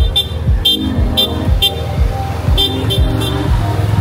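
Clusters of short shrill whistle blasts, three or four in quick succession, over a bass-heavy dance-music beat of about two kicks a second.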